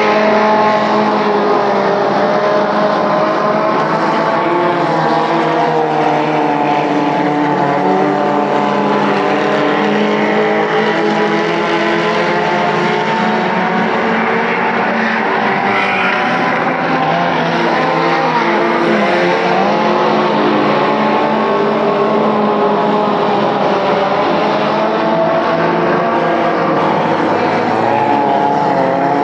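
Dirt-track race cars running laps around the oval, several engine notes overlapping in a steady mix whose pitch rises and falls slightly as the cars go around.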